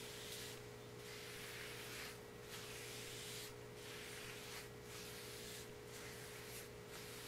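Faint swishing of a cloth pad wiping shellac onto sanded walnut crotch veneer, in strokes about once a second, over a steady low electrical hum.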